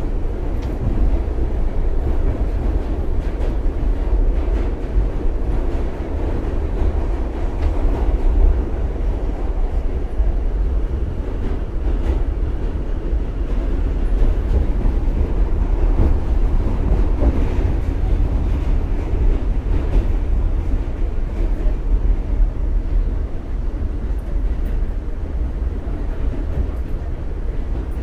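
NYC subway B train running, heard from inside the car: a steady, loud rumble of the wheels on the track.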